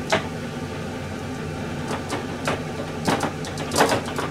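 Kitchen clean-up clatter: a few short sharp knocks and clicks of utensils and objects being handled and put away, the loudest cluster near the end, over a steady low hum.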